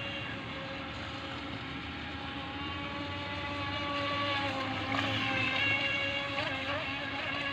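Small electric RC boat motor running with a steady, high whine, its pitch wavering a few times near the end as the throttle changes.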